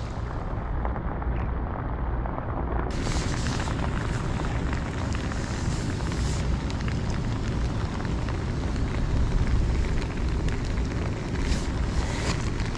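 Rain and wind on the camera microphone: a steady rushing hiss with a heavy low rumble.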